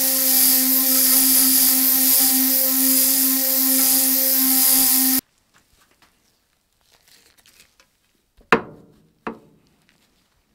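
A power tool running steadily with a hum and a hiss, stopping abruptly about five seconds in. Faint handling noises follow, then two sharp knocks less than a second apart, each with a short ringing tail.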